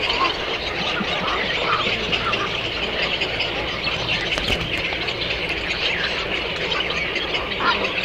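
A flock of many birds calling at once, a dense, continuous chatter of overlapping short calls.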